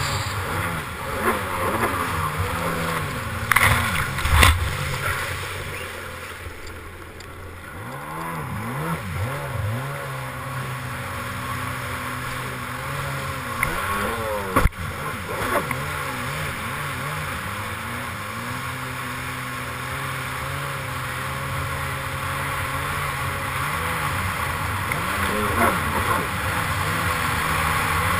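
Yamaha SuperJet stand-up jet ski's two-stroke engine running hard, its pitch rising and falling over and over as the throttle is worked, over rushing water and spray. A few sharp thumps stand out, about four seconds in and again midway.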